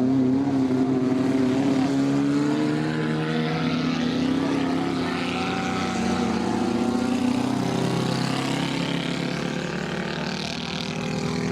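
Small-displacement racing car engines of the 1100 class running hard, several engine notes overlapping with slight rises and falls in pitch.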